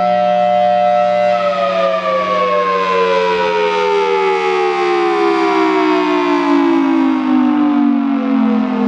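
Federal Signal Thunderbolt 1003 outdoor warning siren ending its full alert signal. Its steady, very loud two-tone chord holds for about a second and a half, then the pitch slides steadily down as the siren winds down, over a steady low hum.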